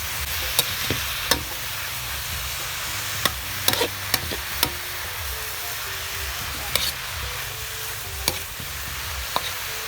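Karupdop mushrooms sizzling in a pan while being stirred, with the spatula clicking and scraping against the pan at irregular moments.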